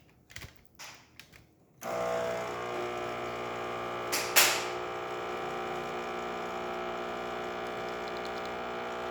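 Lelit Elizabeth espresso machine pump switching on about two seconds in, after a few light handling clicks, and running with a steady hum as a test shot is pulled. A brief loud burst of noise comes twice about four seconds in.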